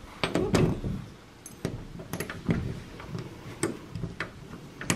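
Small screwdriver probing the emergency-release hole of a locked privacy doorknob, giving irregular sharp metallic clicks and knocks, about eight over a few seconds.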